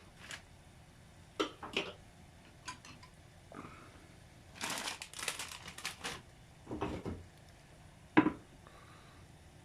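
Scattered handling noises: a few light clicks, a short crinkly rustling stretch around the middle, a dull thud, and one sharp knock near the end.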